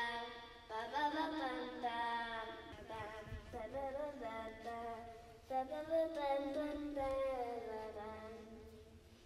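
A child's high voice singing long, sliding, held notes in a few phrases, growing fainter toward the end.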